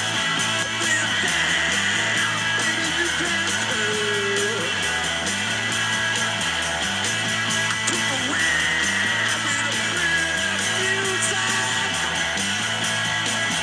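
Background music with a steady, repeating beat.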